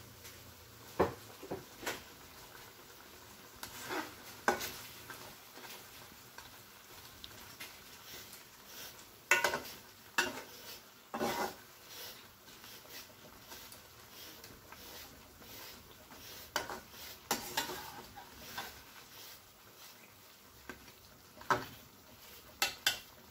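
Metal spatula stirring thick chicken curry in an aluminium pan, with irregular scrapes and clinks against the pan. Underneath, the curry sizzles faintly as it cooks on the flame.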